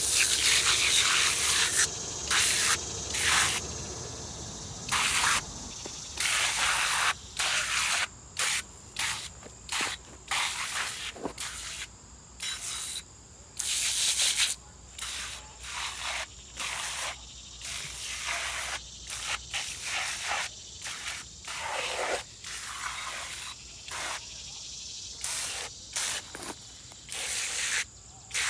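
Aerosol can of engine degreaser spraying onto an engine: a long hissing burst at first, then many short bursts of varying length.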